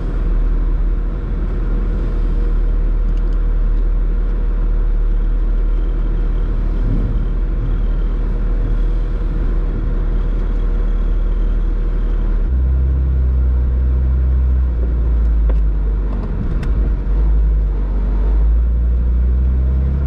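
Off-road SUV's engine running with a steady low rumble as it drives up a shallow river, the rumble growing heavier about twelve seconds in.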